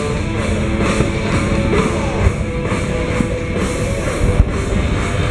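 Rock music with drums, loud and steady.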